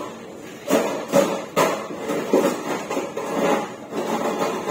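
Three sharp knocks in quick succession about a second in, followed by softer, uneven knocking and clatter.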